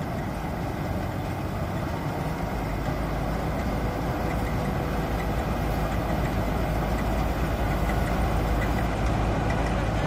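Mahindra Balkar combine harvester running under load as it cuts standing rice: a steady engine and machinery drone with a steady whine, growing gradually louder as it comes closer.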